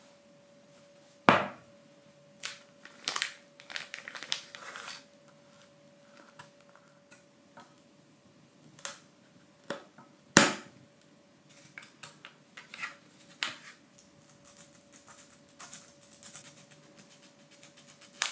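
Laser-cut plywood parts of a wooden model kit being handled, giving sharp clicks and knocks with some rustling. The two loudest clicks come about a second in and about ten seconds in, and a quick run of light ticks follows later. A faint steady hum runs underneath.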